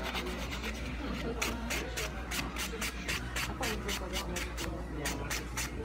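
Hand nail file rasping back and forth across fingernails in quick, even strokes, about five a second, under faint background chatter.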